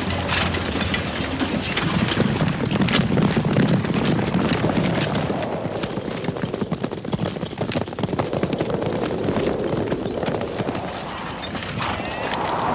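Many horses galloping, a dense patter of hoofbeats. A rushing noise swells near the end.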